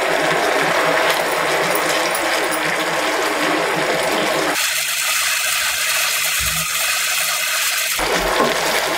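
Vermicelli in sugar syrup bubbling and sizzling in a nonstick frying pan while it is stirred, the spoon scraping against the pan. About halfway through, the sound changes abruptly and becomes thinner and hissier.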